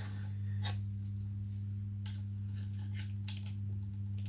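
A few faint clicks and taps from small model parts being handled on a workbench, over a steady low electrical hum.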